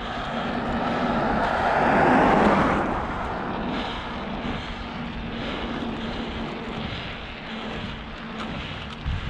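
Wind rushing over the microphone and bicycle tyres rolling on pavement while riding, swelling louder for a moment about two seconds in.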